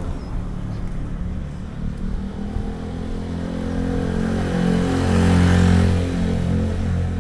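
A motor vehicle's engine passing close by, growing louder to a peak about five to six seconds in and then easing off, over street noise.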